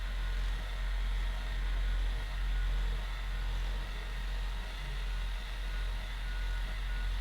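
Steady low-pitched hum with an even background hiss.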